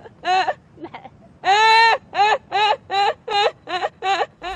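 A woman laughing hard: one longer high-pitched whoop about a second and a half in, then a quick run of short "ha" bursts, about three a second.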